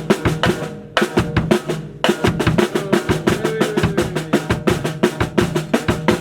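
Drum kit played in a fast, busy beat of close snare and bass drum strokes, with fresh accents about one and two seconds in; it stops suddenly at the end.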